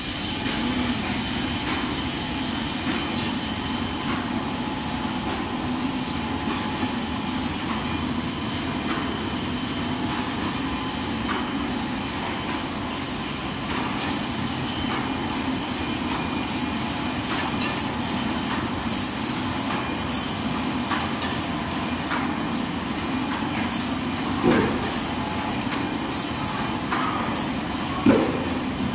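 Automatic straight-line folder gluer running, with a steady mechanical noise of belts and rollers and a regular high ticking. Two short, louder sounds come near the end.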